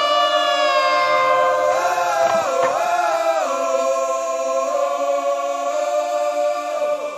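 End of a punk rock song: the drums and bass stop and several voices hold long notes together, wavering and bending in pitch around the middle, then fading out near the end.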